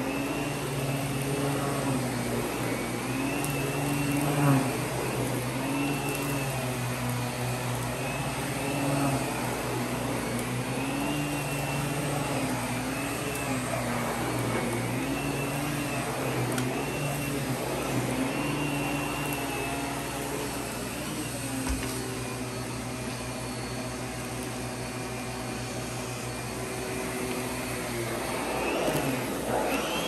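Miele vacuum cleaner running steadily, its motor pitch rising and falling about every two seconds, then holding steadier for the last part.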